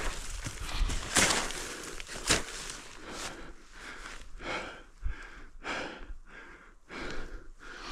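Snowshoe steps crunching in snow, about two or three a second, with the hiker's breathing.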